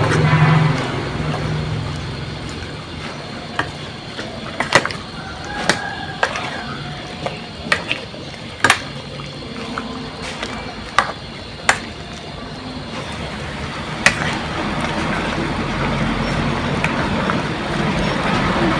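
A series of sharp, irregular knocks and clicks, about a dozen, over a steady background noise with faint voices.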